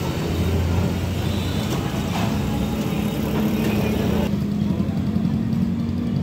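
A steady low hum over general street noise.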